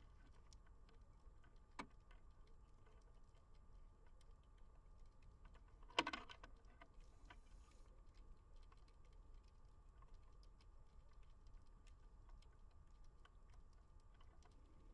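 Faint underwater reef ambience: scattered small crackling ticks over a low hum, with a short click about two seconds in and a louder brief knock about six seconds in.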